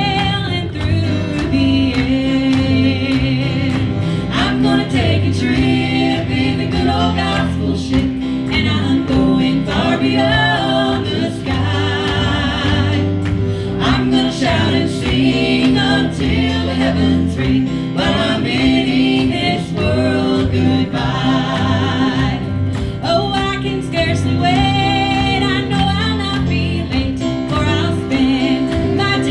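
Live gospel music: two women singing together into microphones, backed by strummed acoustic guitar, electric bass and keyboard.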